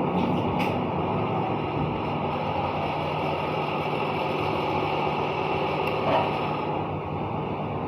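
An engine running steadily, with a couple of faint brief clicks.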